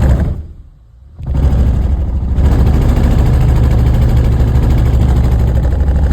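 Vehicle engine running with a loud, steady low rumble. It drops away for about a second soon after the start, then comes back abruptly and runs on steadily.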